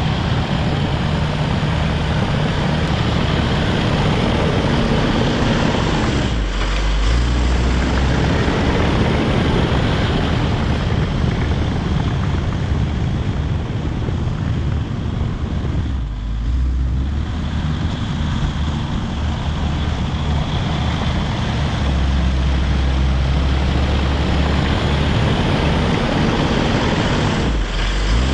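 Caterpillar D5 wide-track bulldozer's diesel engine running hard under load while grading, a loud, steady drone. Its deep note dips briefly three times, about a third of the way in, just past halfway and near the end, as the load or throttle changes.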